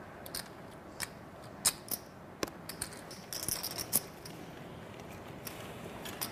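Clay poker chips clicking against each other as they are handled at the table, in scattered sharp clicks with a short cluster of clicks near the middle.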